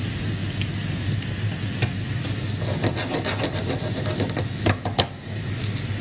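Bitter gourd slices sizzling as they fry in hot oil in a pan, with a spoon stirring through them. A few sharper scrapes and clinks of the spoon on the pan come in the second half.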